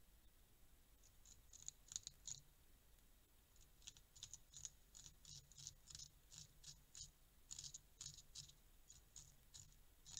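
Eurasian beaver gnawing wood at the base of a tree trunk: faint, quick, sharp scraping bites of its incisors, coming in irregular runs of a few a second with short pauses between them.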